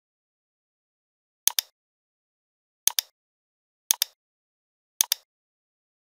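Computer mouse clicking four times, each click a sharp press-and-release pair, about a second apart, with dead silence between.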